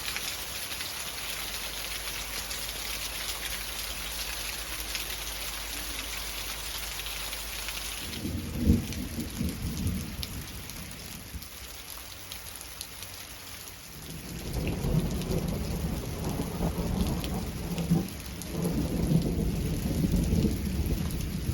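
Rain falling steadily, an even hiss, with a single knock about nine seconds in and low rumbling through the second half.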